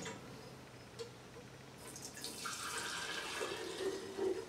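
Liquid poured from a stainless steel pot trickles through a funnel into a glass mason jar, starting about two seconds in, after a faint tick about a second in.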